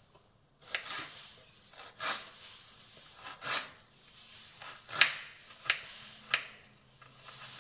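Small kitchen knife slicing a red onion into strips on a wooden chopping board: about ten crisp, irregular cuts and taps, the loudest about five seconds in.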